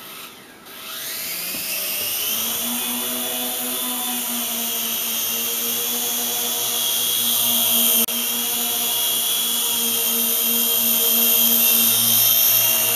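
The YD-718 toy RC helicopter's small electric motors and propellers spin up in a rising whine over the first two seconds. They then run at a steady, high-pitched buzz as it flies.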